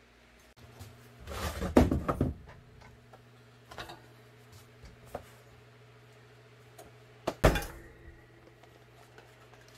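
Foam pads being handled and laid onto a clamshell heat press, a burst of rustling and clatter about a second and a half in, then one loud thunk near the end as the press lid is pulled shut to clamp the Kydex. A steady low hum sits underneath.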